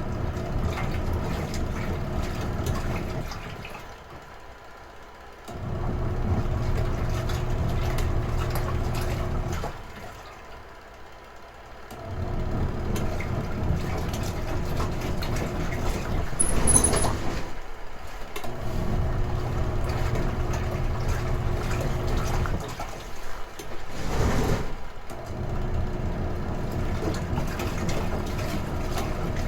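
Retro-style washing machine agitating: its motor hums in spells of about four seconds with short pauses between, the wash stroke starting and stopping over and over. A brief louder noise breaks in about seventeen seconds in, and again near twenty-four seconds.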